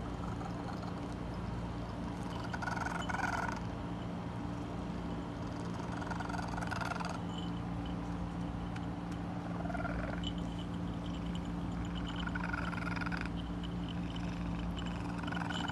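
Domestic cat making soft, bird-like chirping calls, five of them, each about a second long and roughly three seconds apart, over a steady low hum. It is the sound this cat makes when it is being very affectionate.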